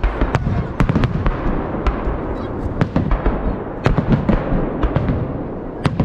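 A festive fireworks salute: an irregular run of sharp bangs, two or three a second, as the salute shells are fired and burst, over a continuous low rumble.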